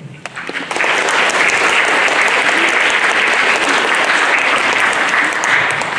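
Audience applauding: many people clapping, building up within the first second and then holding steady.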